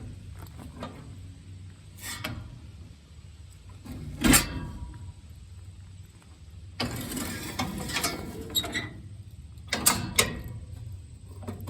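Metal clunks and rattling from a New Holland 311 square baler's pickup reel being turned by hand to check its cam follower rollers. One sharp knock about four seconds in is the loudest, followed later by a stretch of rattling and a few clicks.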